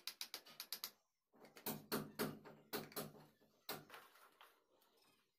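A hammer tapping against a brick wall in a quick run of light strikes, about eight in the first second. Then comes a stretch of irregular knocking and scraping, with one more sharp knock about three and a half seconds in.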